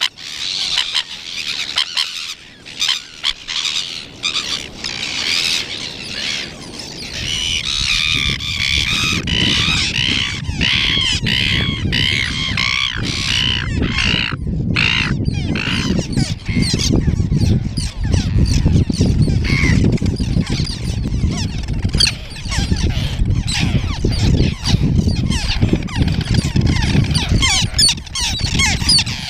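A colony of nesting birds calling, many harsh squawking calls overlapping, busiest about a third of the way in; the birds are agitated by people near their nests. A low rumble runs underneath from about a quarter of the way in.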